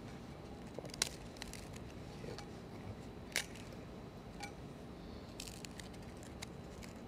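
Scattered faint clicks and light taps of a priest's hands handling a metal paten and chalice, with a sharper click about a second in and another about halfway through.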